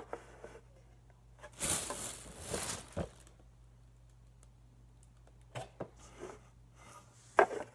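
Plastic toy skate-ramp pieces being handled: a short rustle, then a few light clicks and knocks as the pieces are set against each other.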